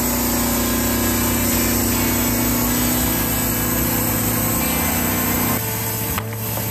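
Norwood LM30 portable bandsaw sawmill running steadily, its engine under load as the blade saws through a log. The sound drops in level about five and a half seconds in.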